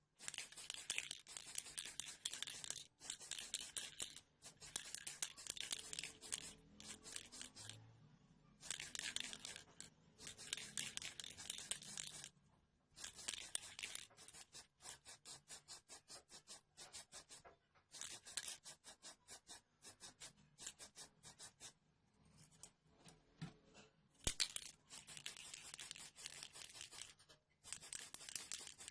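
Rapid back-and-forth abrasive scraping on a small part, in bursts of one to three seconds with short pauses between them, typical of hand-sanding or filing a model truck's body or parts during restoration.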